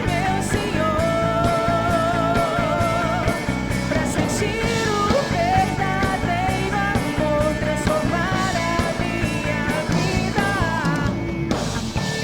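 A worship band plays a rock-style song live on electric guitar, bass and drums, with a wavering melody line over it. The band drops out briefly near the end.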